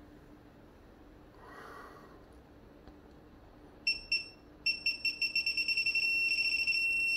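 Digital torque wrench beeping as a bolt is pulled up to torque: a couple of short high beeps about four seconds in, then beeps coming faster and faster until they merge into one steady tone, the signal that the set torque has been reached.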